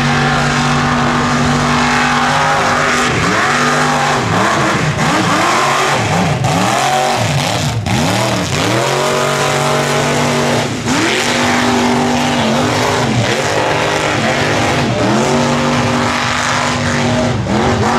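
Mega mud truck's engine running hard at high revs, its pitch swooping up and down again and again as the throttle is worked and the tyres spin and grab in the mud, with a few more dips near the end.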